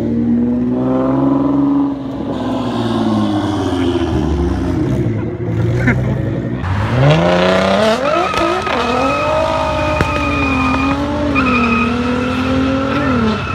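A twin-turbo Nissan GT-R and a turbocharged Honda Civic revving at the line, then launching hard from a standstill, with the engine note climbing steeply about seven seconds in. A steady high-pitched squeal joins about a second later and runs on as the cars pull away.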